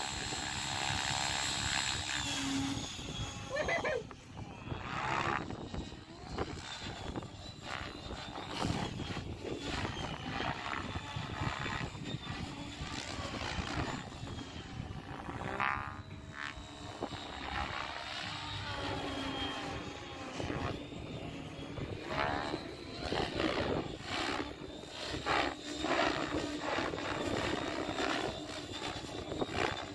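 Radio-controlled 3D aerobatic helicopter flying a freestyle routine: its rotor and motor whine keeps sweeping up and down in pitch as it flips and tumbles.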